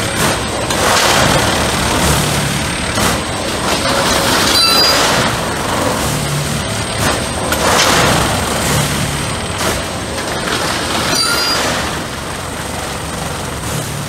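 Track tamping machine working: continuous heavy machinery noise from its engine and hydraulically vibrated tamping tines working the ballast. The noise swells and eases in repeated cycles, and a short high squeal with hiss comes twice, about six seconds apart.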